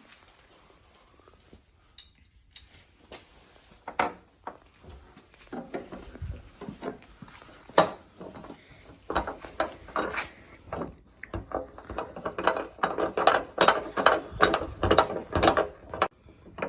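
Ratchet wrench clicking as nuts are run down onto the spoiler's mounting studs: a few scattered clicks at first, then fast, continuous ratcheting in the second half.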